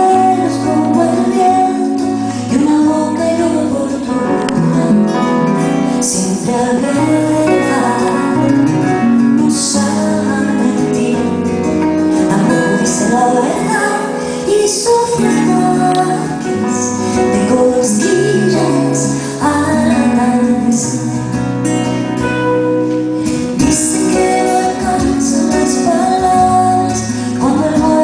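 Live band music with guitar, a bass line and a woman's voice.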